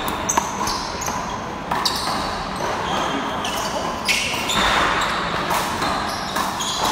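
Rubber handball smacked by hand and hitting the wall during a rally, a few sharp smacks echoing in a large hall, with short high squeaks of sneakers on the court floor.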